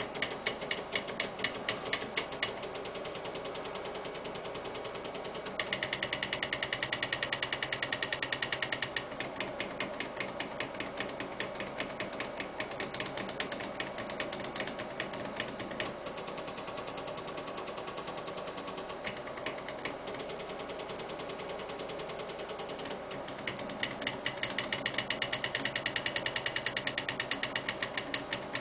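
Floppy disk drive stepper motors of a homemade mini CNC pen plotter stepping as it draws. Rapid ticking in short runs, with two longer stretches of louder, faster buzzing, one about six seconds in and one near the end, over a steady low hum.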